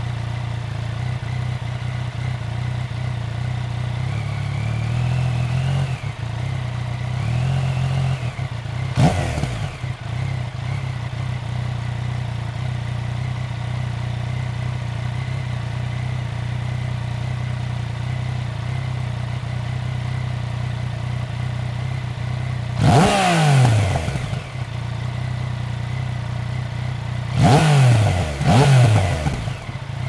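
Yamaha Niken GT's 847 cc three-cylinder engine idling steadily through an Akrapovic exhaust, with throttle blips. There are small rises about 4 and 7 seconds in and a quick blip about 9 seconds in. A sharp rev comes about 23 seconds in and two more follow in quick succession near the end, each falling straight back to idle.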